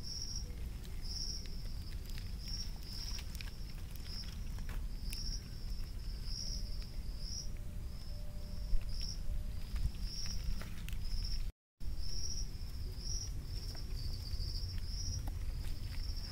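Insects chirping in a high, even chorus that pulses about twice a second, over a steady low rumble, with a few soft clicks.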